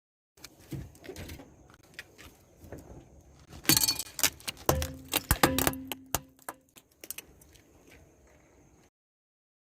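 Something being crushed: scattered clicks, then a dense run of sharp cracks and snaps about halfway through, with a brief ringing tone among them, before it settles to faint crackling.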